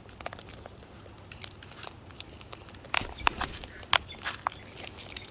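Birds pecking and cracking seed from a hand: irregular sharp clicks of beaks on seed, coming thickest around the middle.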